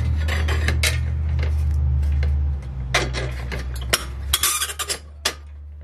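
Scattered metal clicks and clinks from a Dietz Royal tin tubular lantern being handled, with a quick cluster of rattles about four seconds in. A steady low hum runs underneath and drops a little about halfway through.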